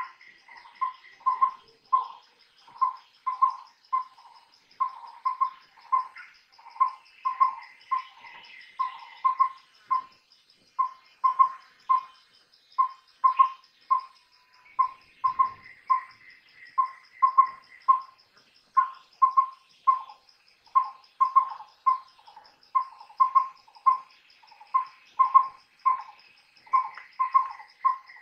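Collared owlet (collared pygmy owl) hooting: short mellow whistled notes, all at one pitch, repeated in quick groups of two to four, like its "wüp-wüwü-wüp" phrase. Behind it runs a steady high insect trill.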